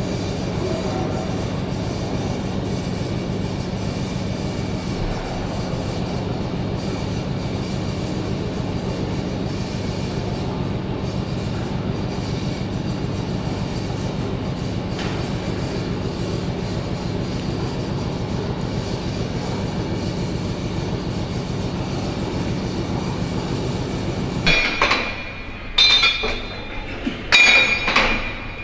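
1904 Burmeister & Wain No. 1 diesel engine running steadily. Near the end the steady running sound cuts off abruptly and sharp metallic clinks follow.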